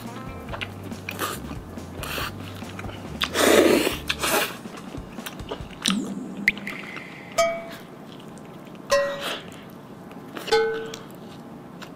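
Chewing and biting into a cheese-heavy pizza slice, with a loud mouth noise about three and a half seconds in, over background music with a bass line that stops about four and a half seconds in. From about six seconds in come a few short comic blip sound effects in stepped pitches.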